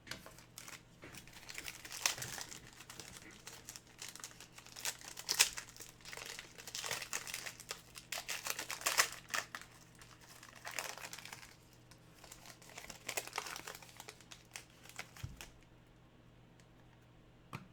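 Plastic crinkling and rustling in irregular bursts, with small clicks, as trading cards and their plastic packaging are handled. It dies down near the end.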